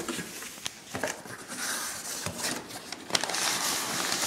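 Packaging being handled as a box is unpacked by hand: rustling and crackling of packing material, with a few sharp knocks.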